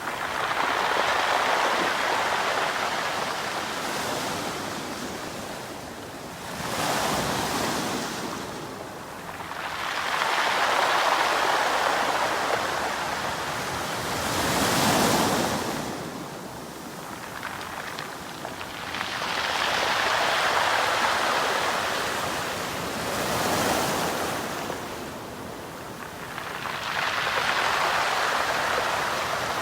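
Sea waves breaking and washing over a pebble beach, the stones rattling and hissing as the water runs back. The surf surges and falls away in a slow rhythm, about seven waves.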